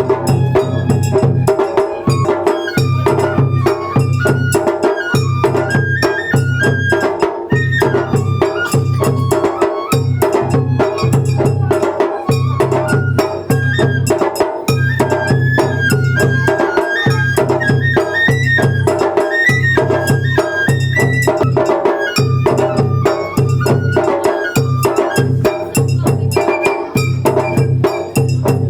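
Japanese festival hayashi: a high bamboo flute plays a stepping melody over fast, steady drumming.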